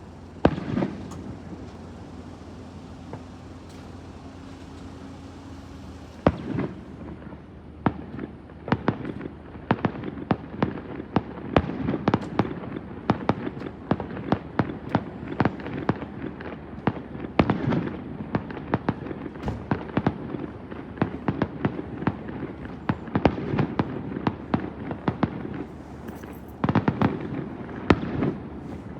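Fireworks shells bursting: one loud report about a second in, then from about six seconds a rapid barrage of many sharp bangs and crackles with echoing tails.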